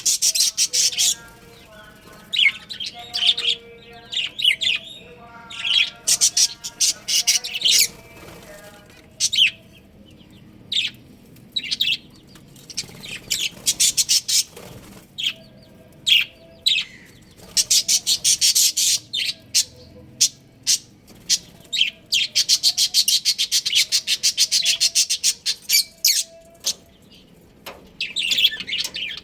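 Budgerigars chirping and chattering in rapid runs of sharp, high-pitched notes, with short pauses between bursts.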